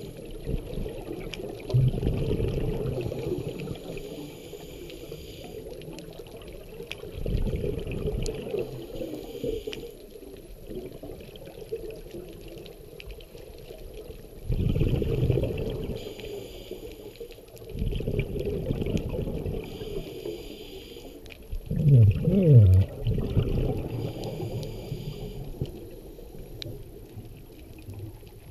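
Scuba diver breathing through a regulator underwater: a hiss on each inhale and a rush of bubbling on each exhale, about five breaths spaced several seconds apart. One exhale partway through carries a short wavering burble.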